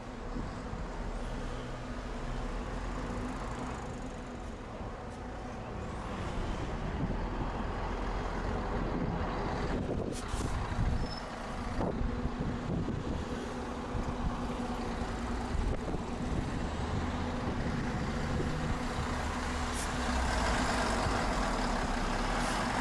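Road traffic on a city street: vehicle engines running past with a steady engine hum, growing louder near the end as a bus passes close by.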